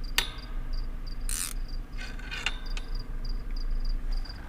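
Crickets chirping steadily, a few short high chirps a second. A sharp click sounds just after the start, and a brief hiss about a second and a half in.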